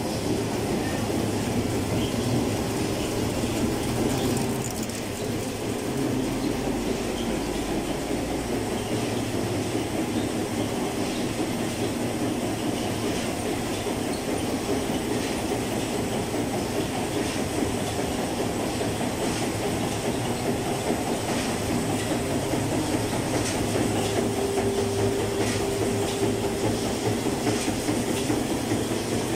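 Wet wipes production line machinery running: a steady, dense mechanical clatter with a fast, even ticking rhythm from the folding and conveying units.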